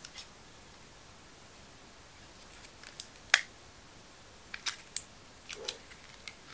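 Plastic packaging being handled and pried at: a quiet start, then a scatter of short, sharp plastic clicks and snaps from about three seconds in, the loudest soon after.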